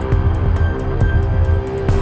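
Background music: sustained synth tones over a low pulsing bass, with a steady ticking beat of about four to five ticks a second.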